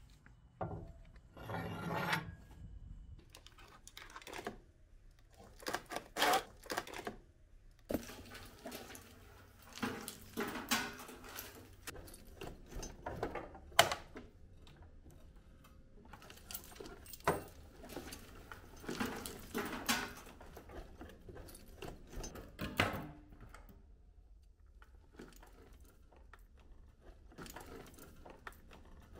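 Old vehicle wiring loom being handled and pulled free: rustling of wires in irregular bursts, with scattered clicks and small metal clinks from connectors and switches, the sharpest click about halfway through.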